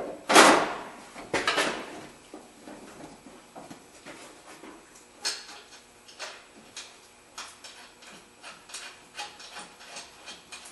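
Heavy metal clunks and a scrape as a front strut assembly of a 2008 Toyota Highlander is pushed up into place in the wheel well, loudest in the first two seconds. A run of small irregular metal clicks and taps follows.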